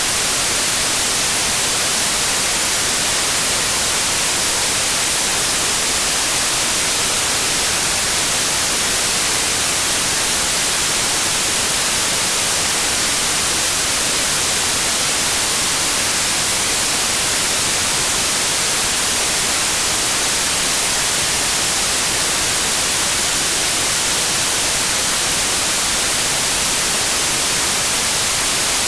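Steady, unchanging white noise: an even hiss across the whole range, brightest in the high end.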